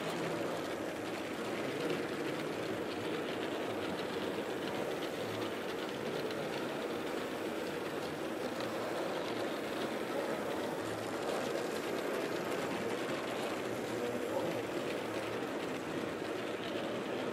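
Tinplate toy trains running on their layout track, a steady, unbroken running noise of small motors and wheels on metal rails.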